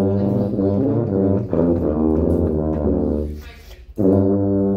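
Sousaphones playing long, low notes, changing notes about a second and a half in, breaking off briefly about three seconds in and then coming back in.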